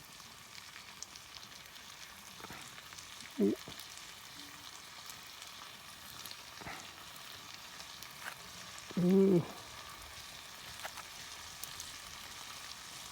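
Faint, steady sizzling with scattered light crackles from food cooking over a campfire. A short hummed voice sound comes about three seconds in, and a louder, longer one about nine seconds in.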